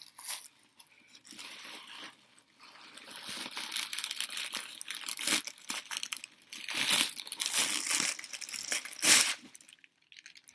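Paper wrapping crinkling and rustling as it is handled and unfolded, in irregular bursts, loudest about seven and nine seconds in.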